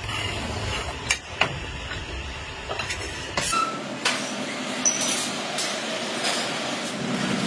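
Factory noise with scattered metal clinks and knocks. From about halfway in, a roll of sheet steel rolls across a concrete floor as it unrolls, a steady rolling rumble broken by occasional clanks.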